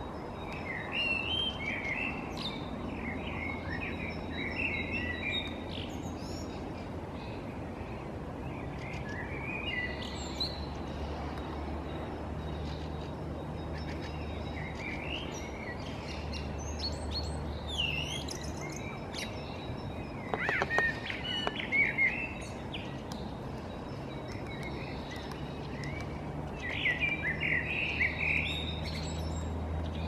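Small songbirds chirping and singing in short, scattered phrases over a steady low hum. The loudest phrases come about two-thirds of the way through, one with a quick falling whistle, and again near the end.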